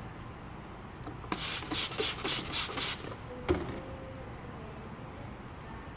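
Clear paint protection film crackling and rustling for about a second and a half as it is pulled and repositioned on a car bumper, followed by a single sharp tap.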